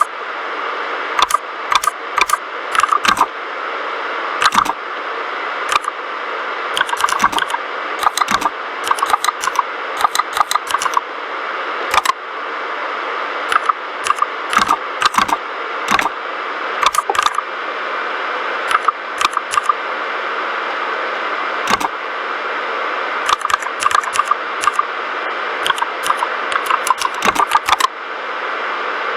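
Typing on a mechanical keyboard with linear red switches: irregular runs of keystroke clacks with short pauses between them, over a steady hiss.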